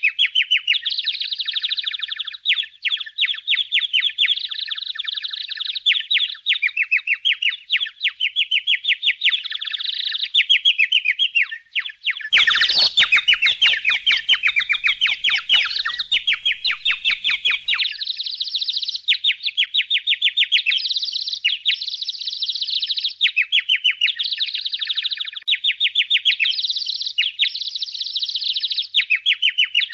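Budgerigars chattering and warbling in a continuous stream of rapid, high chirps. From about 12 to 18 seconds in, a fuller, denser stretch of sound joins the chirping.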